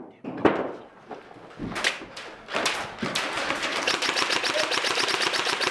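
Airsoft rifle firing on full auto: a fast, even stream of shots lasting about three seconds, preceded by a few scattered knocks as the room is breached.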